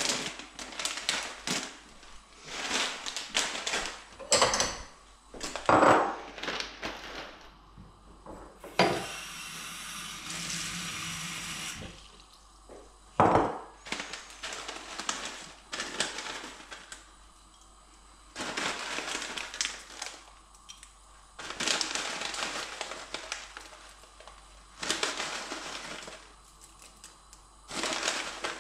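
Plastic food packets crinkling and rustling as they are handled, torn open and shaken, in repeated short bouts. Partway through, a steady rushing noise runs for about three seconds.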